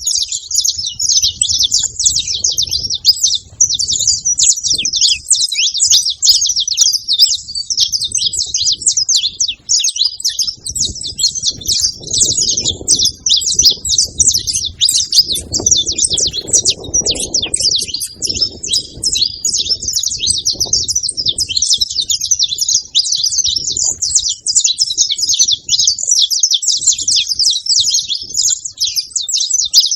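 Saffron finch (canário-da-terra) singing: an unbroken stream of quick, high chirping notes.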